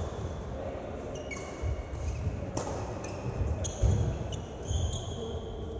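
Indoor court game in play: several short high-pitched squeaks of sneakers on the court floor and dull thuds of a ball bouncing, the loudest thud a little under four seconds in.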